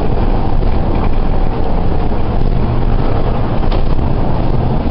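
Steady, loud engine and running rumble of a Volvo Enviro400 double-decker bus, heard from inside the passenger saloon, with a few faint ticks and rattles.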